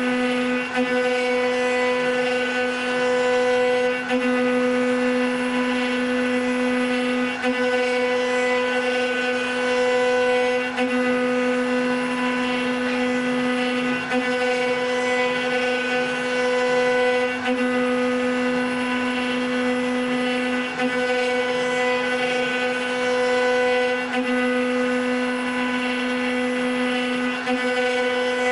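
CNC wood rotary-axis machine carving a turning wooden column: the router spindles run with a steady whine over the noise of the cut. The whine swells and fades every three to four seconds as the cutters work along the piece.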